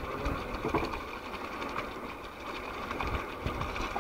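Water from an animal-driven pump gushing out of a plastic discharge pipe and splashing onto wet ground: a steady rushing noise.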